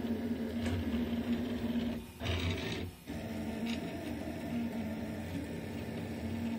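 Delta 3D printer running a print: its stepper motors whine steadily as the print head moves. About two seconds in the sound briefly drops out around a short burst of noise, then the steady whine resumes.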